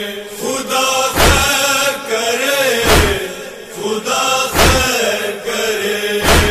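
Recorded Muharram noha: a chorus of voices holding a long, wavering chanted line between verses. A deep thump comes about every second and a half to two seconds and keeps the slow beat.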